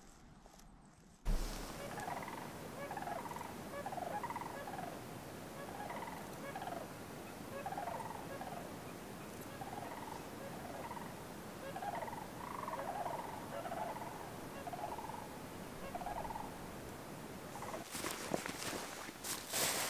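Animal calls: a long run of short chirping calls, about one or two a second, over a steady hiss. Near the end a louder rustling noise takes over.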